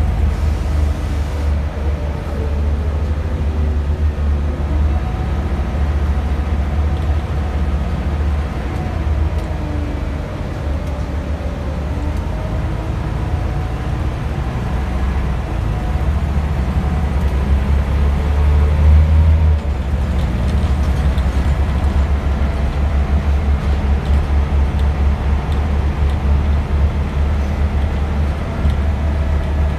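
Scania Omnidekka double-decker bus's diesel engine and drivetrain, heard from inside the passenger cabin while the bus is driven hard. A deep, heavy rumble runs under a whine that rises and falls in pitch with road speed. It swells to its loudest about two-thirds of the way through.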